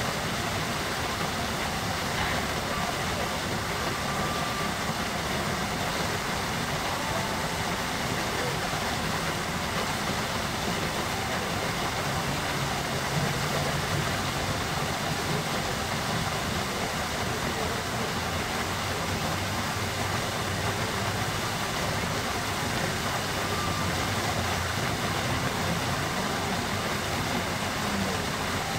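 Steady rushing splash of the Merlion fountain's jet of water pouring into the bay.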